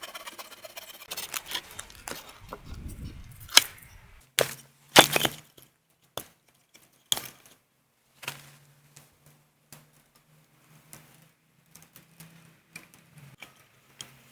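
Wood cracking and splintering in a series of separate sharp snaps, the loudest about four to five seconds in, followed by lighter, sparser clicks and ticks.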